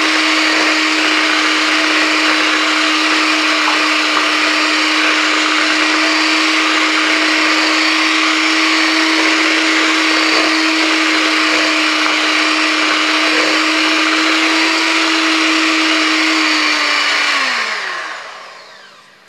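Electric hand mixer running steadily, its twin beaters whisking pancake batter in a plastic bowl. About seventeen seconds in it is switched off and the motor winds down, its hum falling in pitch as it fades.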